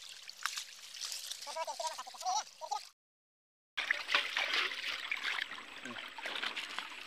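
Water trickling and splashing as small fish are rinsed in a mesh net bag in shallow water. The sound cuts out for about a second around three seconds in.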